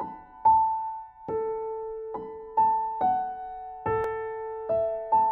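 Slow, gentle keyboard melody in piano tones: single notes and light two-note chords struck about every half second to a second, each ringing and fading before the next.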